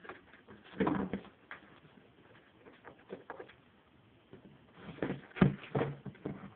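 A ferret rummaging against a plastic bin and bag, with short low clucking sounds (ferret dooking) in two bursts, about a second in and again near the end; the later burst is the loudest.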